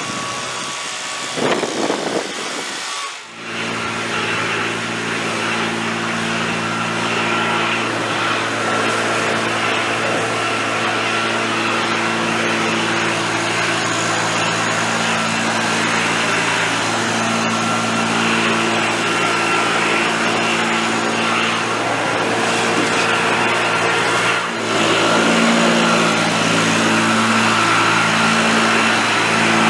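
Small gasoline engine of outdoor power equipment running steadily, with a short break about three seconds in and a brief dip near the end.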